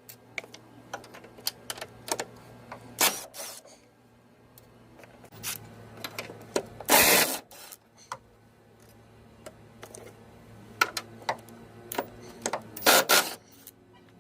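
Hand tools and metal parts clicking, clinking and knocking at irregular intervals during car suspension work, with a louder clatter about seven seconds in and another burst of knocks near the end, over a low steady hum.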